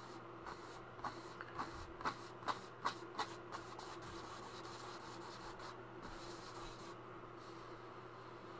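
A flat bristle paintbrush scrubbing and dabbing paint onto a canvas in a quick run of about eight short strokes, from about a second in to about three and a half seconds, over a steady low hum.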